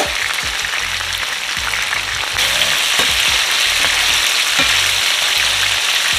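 Seasoned oxtail pieces sizzling as they brown in a hot pot, with a few light knocks along the way. The sizzling gets louder about two and a half seconds in.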